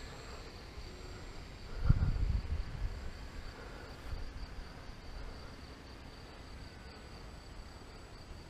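Steady high-pitched insect chirring, with a gust of wind buffeting the microphone about two seconds in.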